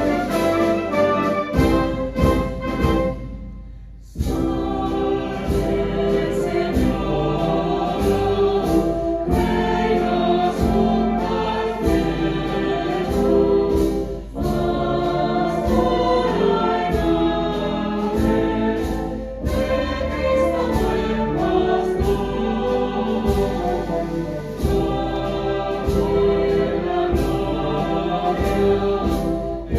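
A wind band and choir performing a hymn: the band's chords break off briefly about four seconds in, then the choir sings with the band accompanying.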